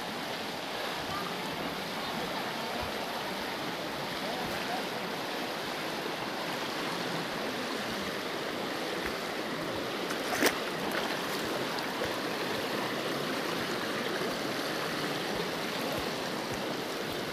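Shallow mountain stream rushing over rocks, a steady wash of water. One sharp click sounds about ten seconds in.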